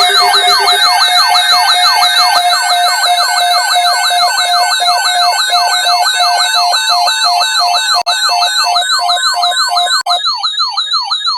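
Electronic siren-style alert tones from emergency alert receivers, several sounding at once: a fast sweeping yelp about three times a second over a warbling high tone and a steady pulsing beep. About ten seconds in the steady beep cuts out, leaving the sweeping siren tone.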